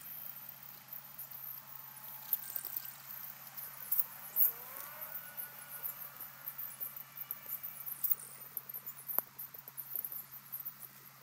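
Pond-edge ambience from an outdoor wildlife camera microphone: busy high-pitched ticking and chirping over a steady low electrical hum, with a single sharp click about nine seconds in.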